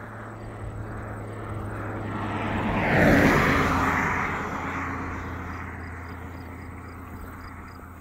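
An SUV driving past on an asphalt road: its tyre and engine noise swells to a peak about three seconds in, then fades as it drives away.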